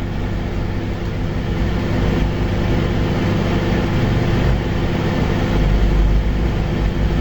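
Microwave oven running: a steady electrical hum with layered low tones under a fan-like hiss, as it bakes cupcake batter.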